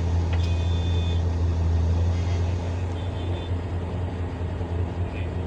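Large diesel engine of heavy mining machinery running steadily with a low, even hum. A short high-pitched tone sounds about half a second in, and a fainter one at about three seconds.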